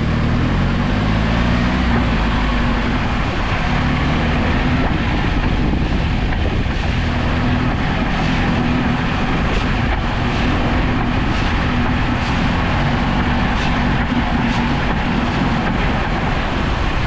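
2006 Jeep Wrangler TJ's 2.4-litre four-cylinder engine running under repeated throttle tests, its pitch rising and falling as the throttle is opened and released. The tests are meant to provoke a clunk on throttle release.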